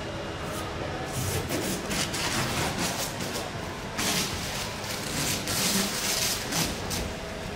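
Background noise of a large exhibition hall: a steady hiss with irregular bursts of hissing noise starting about a second in, loudest in the middle.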